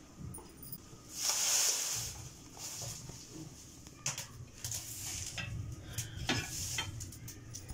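Straw fire crackling and hissing under a dome-shaped iron roti griddle, with a few sharp metallic clicks from tongs or a poker on the iron.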